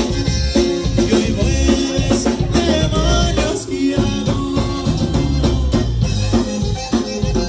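Live conjunto band playing, with a singer over a steady drum-kit beat.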